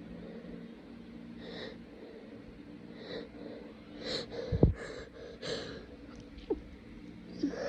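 A person with a congested, runny nose sniffling wetly several times, about a second or so apart. There is one sharper, louder sudden sound about halfway through.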